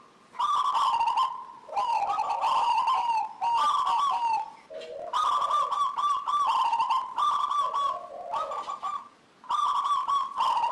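Zebra dove (local perkutut) singing: a string of rapid, rolling coo phrases, each about a second long, with short breaks between them.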